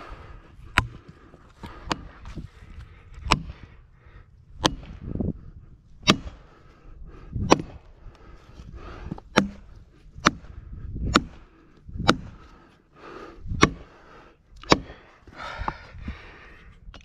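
A 12-ton hydraulic bottle jack pumped by hand under a tree trunk, lifting it to tip the tree over. Each stroke gives a sharp click with a dull knock, about one every second to second and a half.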